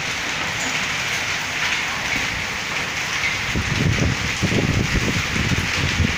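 A storm of heavy rain and hail pelting down, a steady loud hiss. From about three and a half seconds in, a run of irregular dull knocks joins it.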